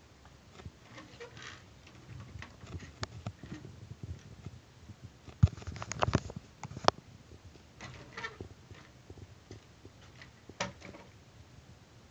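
Irregular light clicks and knocks from a plastic toy RC car shifting on a wooden tabletop, with a few sharper knocks about halfway through.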